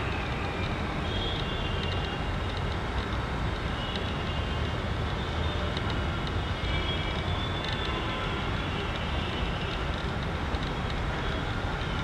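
Steady low rumble of outdoor background noise, like distant traffic, with faint short high chirps now and then.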